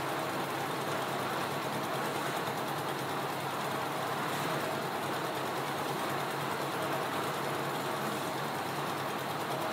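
Concrete mixer's single-cylinder diesel engine running steadily, turning the mixing drum.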